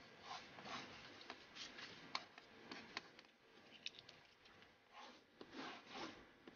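Faint, irregular scratching strokes of a drawing tool on paper, with a few light ticks as it is set down and lifted.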